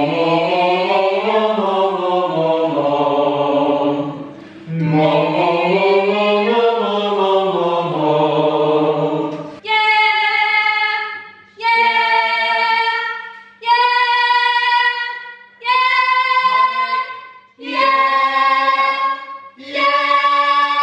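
A group of singers doing vocal warm-ups together: two long sirens sliding up and then down in pitch, then six held notes of about a second and a half each, with short breaks between them.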